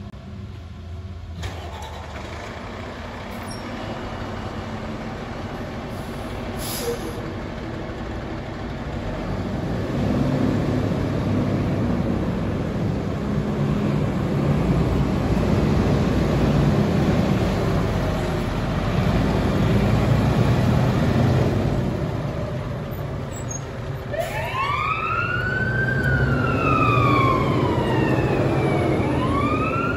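Fire engine's diesel engine running as the truck pulls out, rising and falling with the throttle and growing louder, with a brief air hiss about seven seconds in. About 24 seconds in its siren starts a wail, rising and falling slowly.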